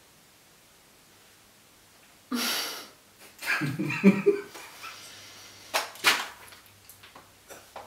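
Wordless vocal reactions: a sharp breathy exhale about two seconds in, then a low groaning voice, then short breathy bursts of stifled laughter.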